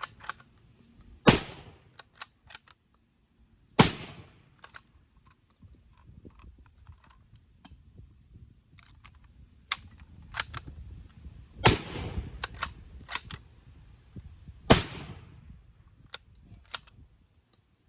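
Old Stevens bolt-action shotgun fired four times as fast as the bolt can be worked: two shots about two and a half seconds apart, then a pause of about eight seconds, then two more about three seconds apart. Between the shots come short metallic clacks of the bolt being cycled.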